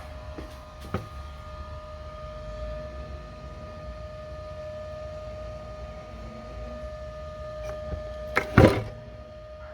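A motor running with a steady whine; a sharp knock about a second in and two loud knocks in quick succession near the end.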